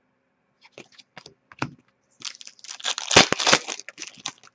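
Upper Deck hockey trading cards being handled and slid against one another in the hand: a few light ticks, then about two seconds of dense rustling and flicking.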